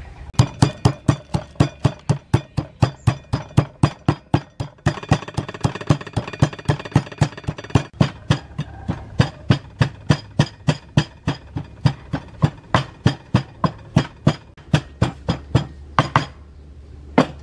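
Wooden pestle pounding peanuts in a clay mortar: steady knocks about three a second that stop shortly before the end, with one last knock after.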